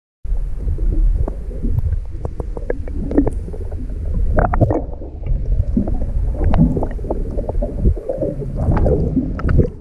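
Muffled underwater sound from a submerged camera: a low, rumbling wash of water with many crackles and clicks, starting abruptly just after the start.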